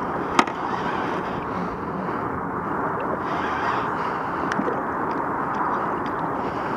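Steady wind noise on the microphone over open water, with one sharp click about half a second in.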